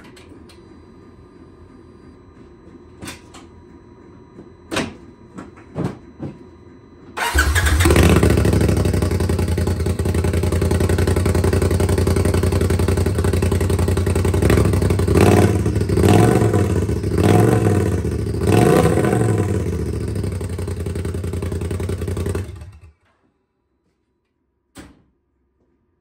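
A few clicks, then about seven seconds in the Polaris RZR Pro XP's engine starts and idles loud through a straight pipe with the stock muffler removed and no tune, with a few brief surges partway through. It stops abruptly about fifteen seconds later.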